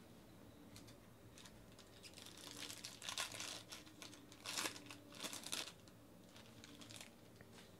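Foil wrapper of a trading-card pack being torn open and crinkled by hand. The crinkling comes in several short bursts over a few seconds in the middle, with quiet before and after.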